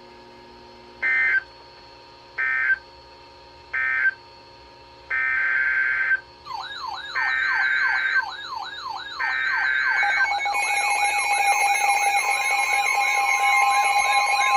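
Emergency Alert System broadcast tones on weather radio. First come three short bursts of screechy digital SAME data, the end-of-message code. Then come three longer data bursts, the header of the next warning, with a fast, repeating siren wail laid over them from about the middle. About two-thirds of the way through, a steady attention tone starts.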